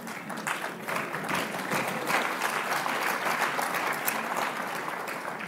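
Audience applauding: many hands clapping together, swelling about a second in and easing off near the end.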